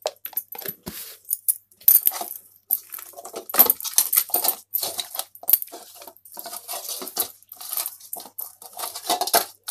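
Bare hands rubbing salt and turmeric into a raw catla fish head in a stainless steel bowl: irregular rubbing and scraping, with frequent clinks of the fish and fingers against the metal bowl.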